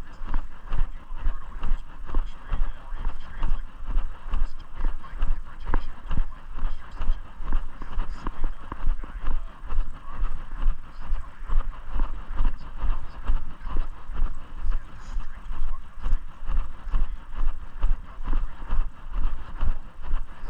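Footsteps of a person walking at a steady pace, about two steps a second, each step a low thud.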